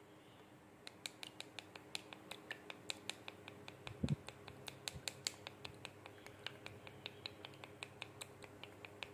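Wooden spatula beating a raw egg in a small glass bowl, clicking against the glass about five times a second, with one dull knock about four seconds in.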